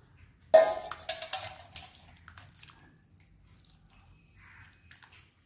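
A stainless-steel bowl knocks against another steel bowl with a sudden ringing clang, followed by about a second of clinks and scrapes as the spiced mixture is scraped out of it. After that comes only faint sound of a hand mixing the wet batter.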